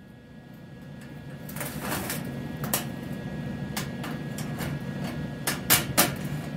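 Scattered light clicks and taps of a stainless steel rod, washer and tools being handled on a steel welding table, over a low hum that swells during the first two seconds.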